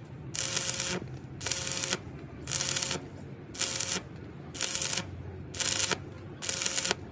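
Stick (arc) welding on a truck's broken steel chassis rail. The arc crackles in about seven short bursts, roughly one a second, with brief pauses between as the arc is struck and broken.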